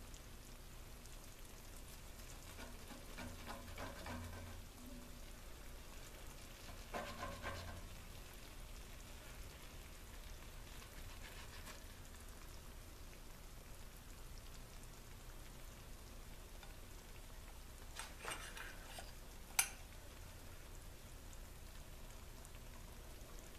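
A metal spatula and fork cut into and lift a baked egg casserole in a cast iron Dutch oven: a few soft scrapes against the pot and one sharp click about twenty seconds in, over a faint steady hiss.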